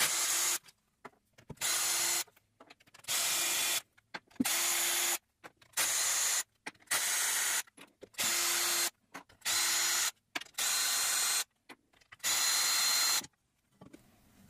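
Cordless drill-driver spinning out the differential-cover bolts of a Ford 8.8-inch axle one after another: about ten short steady runs of about a second each, with brief pauses between them.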